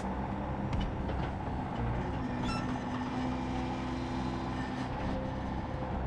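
Yanmar YB451 mini excavator's diesel engine running steadily under work, its pitch shifting a little, with a few short metallic clanks.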